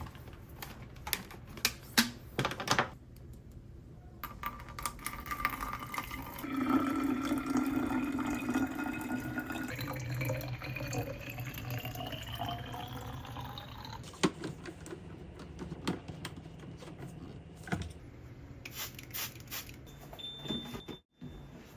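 Water running from a tap into a container, its pitch rising steadily as the container fills, with small clicks and knocks of handled kitchen items before and after.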